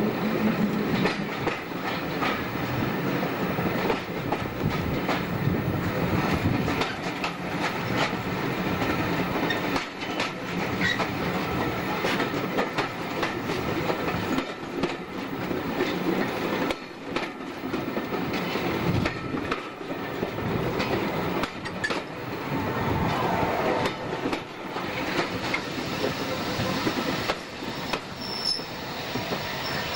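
Running noise of a British Rail EPB slam-door electric multiple unit heard from on board as it arrives at a platform: wheels clattering over rail joints and pointwork in an uneven stream of clicks, with brief wheel squeal toward the end.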